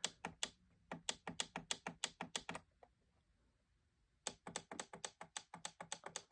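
Repeated clicks of the plastic buttons on a Sharp SPC1225 digital alarm clock, pressed about five or six times a second to step the alarm time forward. The clicking stops for about a second and a half in the middle, then resumes.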